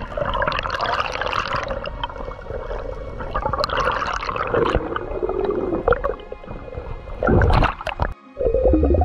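Underwater noise recorded by a diver's camera: gurgling, rushing water and bubbles, with a louder burst of bubbling about seven and a half seconds in.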